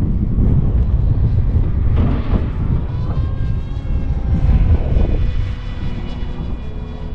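Wind buffeting the microphone, loudest for the first five seconds or so, over the thin whine of an electric RC plane's motor and propeller in flight, its pitch slowly shifting as the plane passes and changes throttle.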